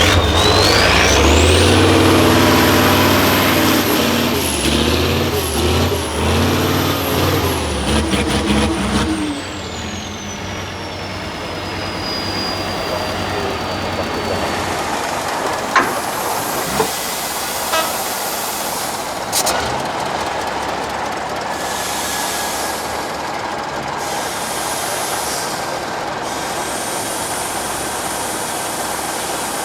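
Tatra 6x6 truck's diesel engine working hard for about nine seconds, with a high whine that climbs sharply at the start and sinks slowly after the engine eases off. Then a lower, steadier vehicle noise with a few sharp knocks and clicks.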